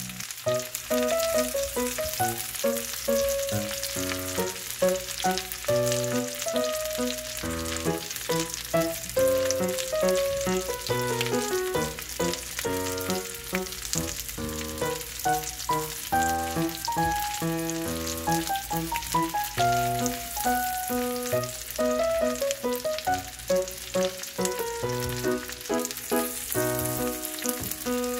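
Whole boiled potatoes frying in melted butter in a pan: a steady sizzle, with a melodic background music track over it.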